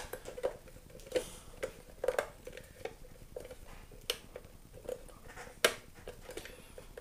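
Irregular light metallic clicks and taps of a chrome headlight retainer ring being worked by hand onto a motorcycle's LED headlight. The sharpest click comes about five and a half seconds in.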